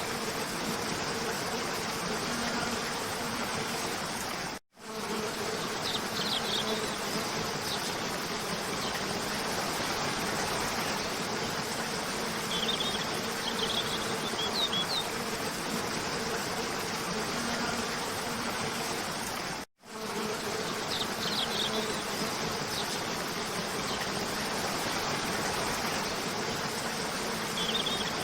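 Waterfall cascade rushing steadily, with a faint steady hum underneath and small clusters of short, high bird chirps every few seconds. The whole sound cuts out for a split second twice, about five and twenty seconds in.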